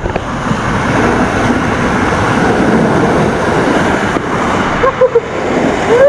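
Waterfall water rushing steadily, with a brief voice sound about five seconds in.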